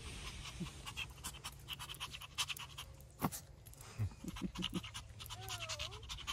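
Small long-haired chihuahua panting rapidly, with a sharp click about three seconds in.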